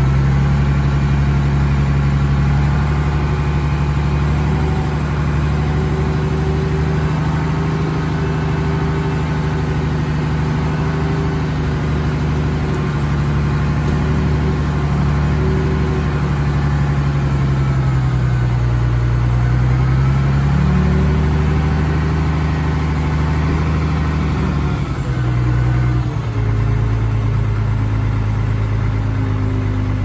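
Heavy diesel engine of earthmoving machinery running steadily under load. Its pitch sags and recovers a little past halfway, and shifts again shortly before the end.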